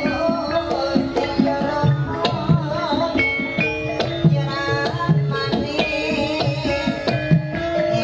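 Javanese gamelan music accompanying a gambyong dance: ringing bronze metallophone and gong-chime notes over a steady pattern of hand-drummed kendang strokes, with a brief wavering melodic line about two and a half seconds in.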